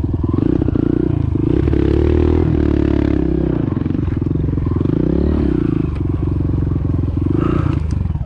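Kawasaki KLX140L's single-cylinder four-stroke engine heard close up from the rider's seat, running hard with its pitch rising and falling as the throttle is worked, with clear dips about two and a half and five seconds in.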